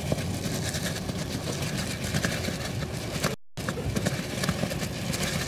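Car moving slowly: steady low engine and road rumble with scattered sharp clicks and crackles, and a brief complete cut-out of the sound about three and a half seconds in.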